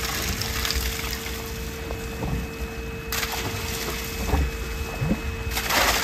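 Concrete pump running with a steady hum and low rumble. Near the end comes a wet gush as slurry starts pushing out of the open end of the pump line.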